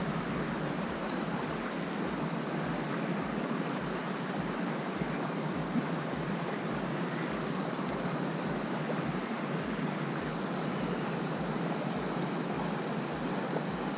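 Steady rushing of river water flowing over stones, with a single faint click about six seconds in.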